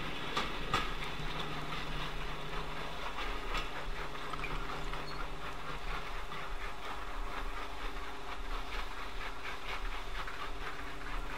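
Steam-hauled excursion train behind 'D' class 4-4-0 locomotive No. 31577 running away into the distance, its wheels clicking faintly over the rail joints. A steady distant aircraft drone sounds underneath.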